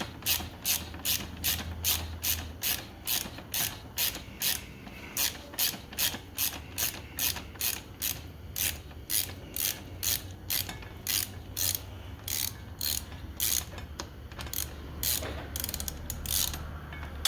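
Socket ratchet on an extension clicking in a steady run, about three clicks a second, as the 14 mm upper brake caliper bolt is backed out. The clicking pauses briefly near the end, then a few more clicks follow.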